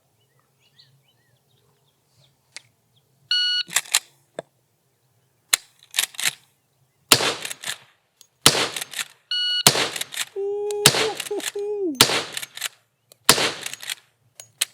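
Shot timer beep, then a Winchester Model 94 AE lever-action rifle in .357 Magnum firing six rounds with uneven gaps between the shots. The irregular pace comes from a misfed round and a short-cycled lever.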